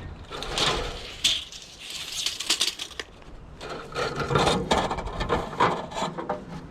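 Thin aluminum trim sheet being handled and worked on a metal brake: irregular clatter, knocks and short scrapes of light sheet metal.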